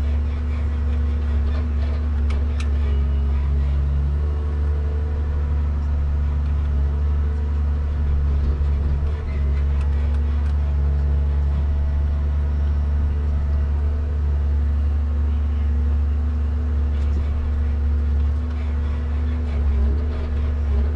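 Komatsu 875 forwarder running steadily, heard from inside the cab: a low diesel drone with a humming tone that comes and goes as the crane's hydraulics work the grapple and logs. A few faint knocks come through, about two and a half seconds in and again about ten seconds in.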